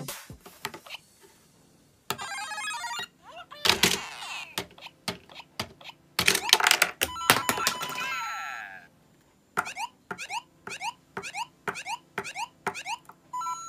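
LEGO Super Mario interactive figure playing electronic game sound effects from its built-in speaker: a string of beeps, jingles and pitch glides with short pauses, and in the last few seconds a regular run of short rising chirps.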